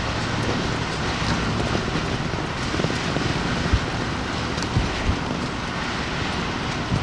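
Extreme wind blowing hard and steadily, buffeting the microphone with a few short thumps from gusts near the middle.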